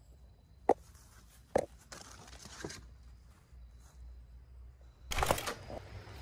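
Footsteps of someone walking on a garden path: two sharp steps about a second apart, then louder crunching, scuffing steps about five seconds in.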